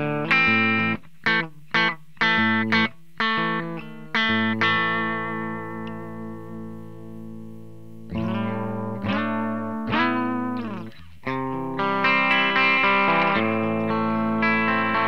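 Ibanez RG370DX electric guitar played through a Line 6 POD 2.0 amp modeler, recorded direct: a run of short, choppy chords cut off sharply for about the first four seconds, then a chord left ringing and slowly fading, then more chords that ring out toward the end.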